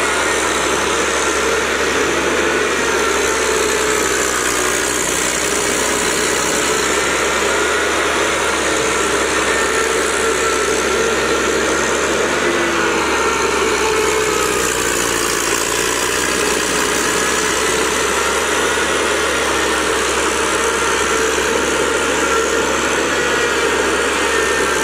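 Small diesel engine of a walking-type paddy tractor running steadily as it works through deep mud, its pitch wavering only slightly.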